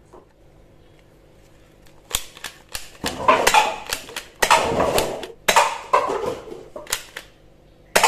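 Toy gel ball blaster firing water gel beads in short rapid bursts, starting about two seconds in, with paper cups clattering as they are hit and knocked over.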